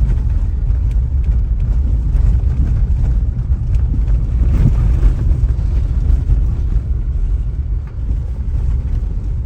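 Steady low rumble of a car driving along, engine and road noise.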